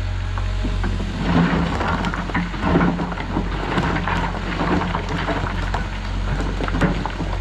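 Caterpillar excavator's diesel engine running steadily while its bucket works in riprap, with a rattling clatter of rocks and dirt from about a second in.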